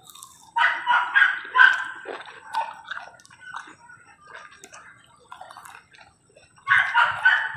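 An animal calling in two clusters of short, loud, pitched bursts, the first about half a second in and lasting about a second and a half, the second near the end. Softer chewing sounds come between them.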